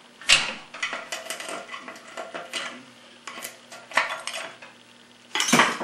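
Steel pick or screwdriver clinking and scraping against the Turbo 350 transmission's aluminium case while prying out the accumulator snap ring and cover: a scattered run of sharp metallic clicks and taps, loudest about a third of a second in, around four seconds in, and in a cluster near the end.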